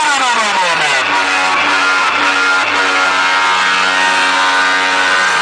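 Music played loud through a paredão, a car-mounted competition speaker wall. In the first second a guitar-like note glides steeply down, then a low note is held with a chord sounding above it.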